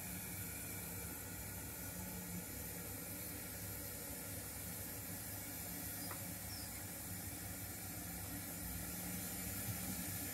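0 gauge model trains running on the layout: a steady low hum under a constant hiss.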